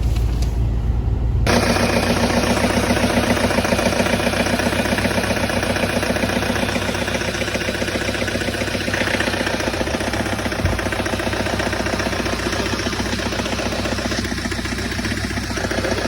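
Low in-cab rumble of the Mitsubishi L200 on the move. About a second and a half in, it cuts suddenly to its 2.5-litre diesel engine running close up with a knock, the engine knock found on inspection.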